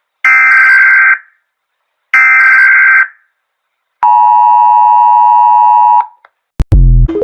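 Emergency Alert System–style alert audio. Two harsh, buzzy digital data bursts of about a second each are followed by about two seconds of a steady two-tone alert tone. A brief low thump comes near the end.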